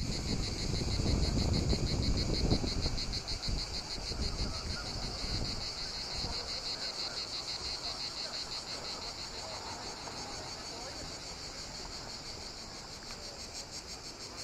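A chorus of cicadas: a steady, high, rapidly pulsing rasp throughout. Wind buffets the microphone with a low rumble for the first five seconds or so, the loudest part, then dies away.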